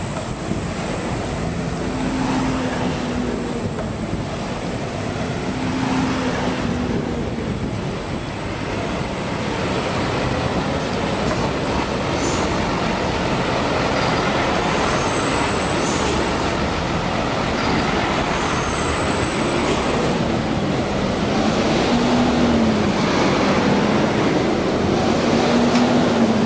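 Steady running noise of a moving vehicle, with a faint low whine that rises and falls in slow arcs several times.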